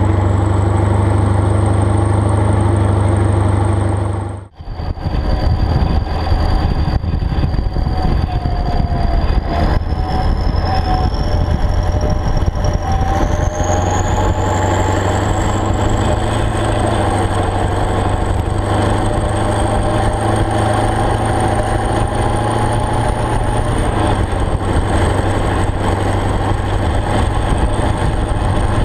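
Kirovets K-700A tractor's diesel engine running steadily under load while pulling a disc harrow through a field. About four and a half seconds in, the sound briefly drops out. It then comes back rougher and more rattly, with a high whine that rises slowly in pitch over several seconds.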